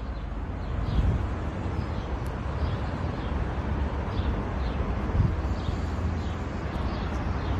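Outdoor city ambience: a steady low rumble with faint bird chirps every second or so, and a couple of soft bumps about a second in and near the five-second mark.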